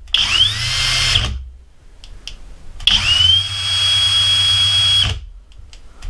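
Flex 24V brushless hammer drill running free with no load, triggered twice: a short run of about a second, then a longer one of about two seconds. Each spins up with a rising whine that levels off, then cuts off suddenly. A few light clicks come in the gaps between runs.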